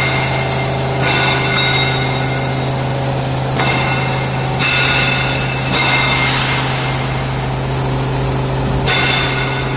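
Neway PM2040HA gantry machining centre drilling into a welded steel machine bed under coolant. A high-pitched metal-cutting whine of several tones comes and goes every second or two over a steady low machine hum.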